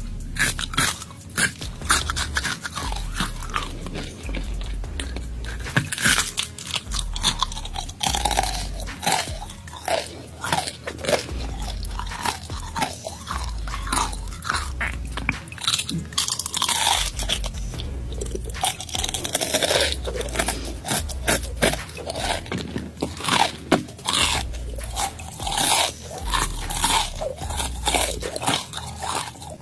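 Close-up crunching and chewing of deep-fried tarantula: many irregular crisp crunches and mouth sounds throughout.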